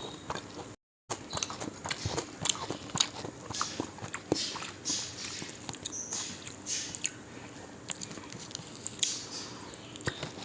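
A person chewing and biting into deep-fried parrot fish: a run of small, irregular crisp clicks and mouth sounds, briefly cutting out about a second in.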